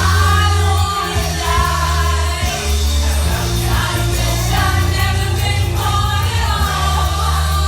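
A song with a sung melody over a heavy, steady bass line.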